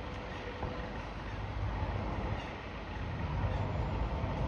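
Steady low engine rumble over outdoor background noise, growing a little louder in the second half.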